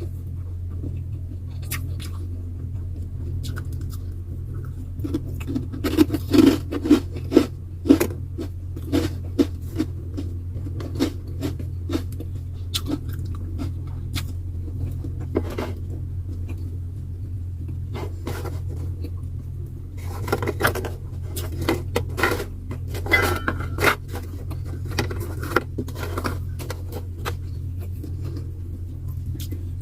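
Eating at a table: utensils and dishes clicking and scraping in two busy spells, over a steady low hum.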